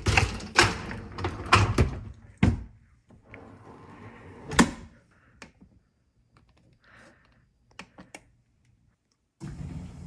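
Whirlpool dishwasher's wire racks rattling as they are slid back in, and the door shutting with a loud thunk. This is followed by small clicks of the control-panel buttons being pressed. Near the end a steady hiss starts as the dishwasher begins to fill with water.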